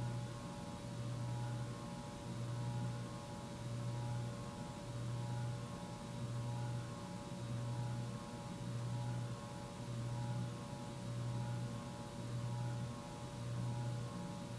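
Codep Stratosphere IV 52-inch hugger ceiling fan running, its motor giving off a low hum and buzz that swells and fades about every second and a half, with a steady higher whine above it. The hum and buzzing are typical of lower-end generic hugger fans.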